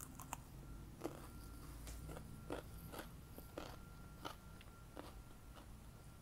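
Someone biting into a raw cucumber spear and chewing it: a crisp bite at the start, then wet crunches every half second or so that thin out near the end.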